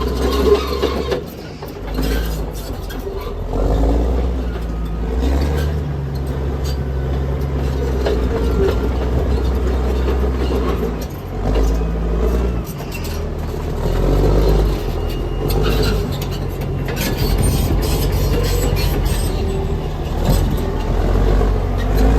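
Heavy diesel engine running, its low drone stepping up and down in pitch as the load changes, with scattered knocks and clatter on top.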